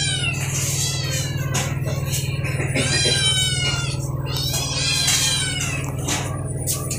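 Domestic cats meowing repeatedly, high-pitched calls with the longest about three seconds in, calling for food at feeding time.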